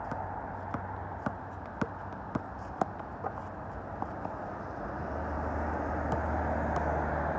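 A basketball bouncing on a hard outdoor court as it is dribbled: sharp single knocks about two a second, stopping after about four seconds. A low steady rumble builds about five seconds in, over constant outdoor background noise.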